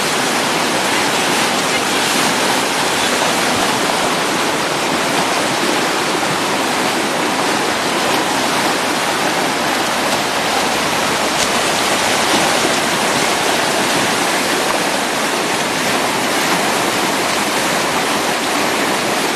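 River rapids rushing steadily: a loud, even noise of churning whitewater.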